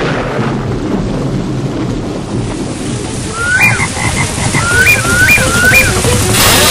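Steady rain-like noise with a low rumble. In the second half four short calls sound, each gliding upward and then holding briefly: frogs croaking.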